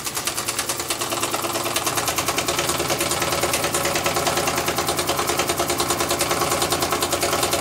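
Mamod MEC1 toy steam engine, converted to twin cylinders, running fast with a rapid, even clatter of exhaust beats, several a second. Its owner calls these funny noises and fears the engine will fall to pieces.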